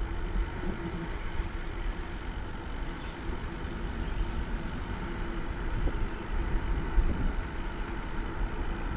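Wind rumbling and buffeting on the microphone of a camera carried on a moving bicycle, with a faint steady hum underneath.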